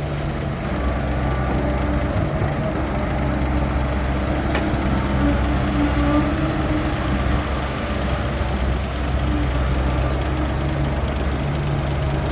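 Heavy diesel engines running steadily at a low rumble as an excavator works loading soil into a dump truck. A wavering whine rises and falls through the middle few seconds, and a single sharp click sounds about four and a half seconds in.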